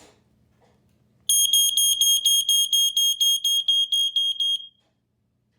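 Jameson Code One 2000 Model E smoke alarm sounding its piezo horn on test: a high-pitched, rapidly pulsing tone, about five pulses a second, starting about a second in and cutting off after roughly three seconds.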